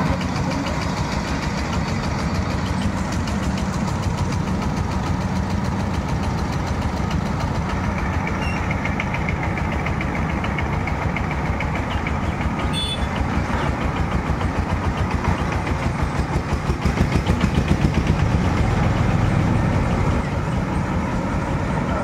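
Marksan K-BOS MS1200 combine harvester running steadily while harvesting rice: a continuous mechanical drone with a fast, even pulse, a little louder for a few seconds near the end.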